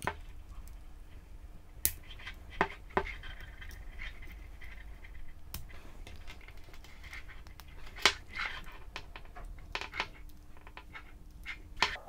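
Handling noise from a microphone blimp being assembled: scattered sharp plastic clicks, about six spread out and irregular, with light scraping and rubbing between them as the shotgun microphone is seated in the shock mount. A faint steady hum runs underneath.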